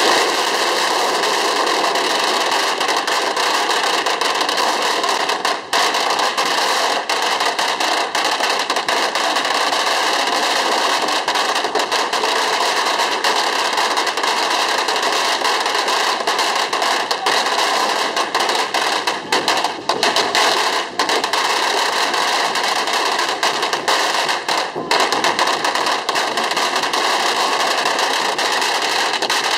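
Long strings of firecrackers going off in a continuous, dense crackle of rapid bangs, with a few brief lulls.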